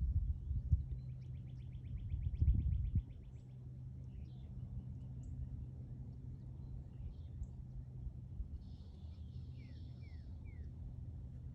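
Wild birds calling: a fast trill of about ten notes a second for a couple of seconds, scattered short chirps, a buzzy call and then three quick falling notes near the end. A low rumble on the microphone is loudest in the first three seconds.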